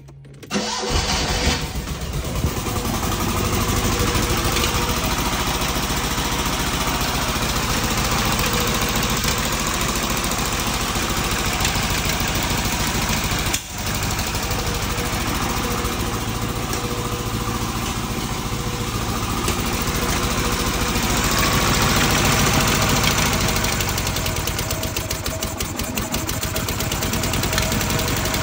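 Fiat 126p BIS's two-cylinder engine running steadily, firing on both cylinders, with a brief break about halfway through.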